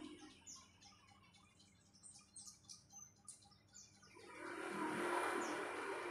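Small birds chirping in quick, high twitters. About four seconds in, a broad rushing noise swells up and becomes the loudest sound.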